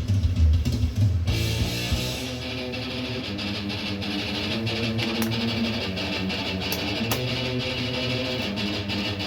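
Heavy metal music led by electric guitar. Heavy low thumping plays for about the first second, then held guitar chords ring out over a steady high wash.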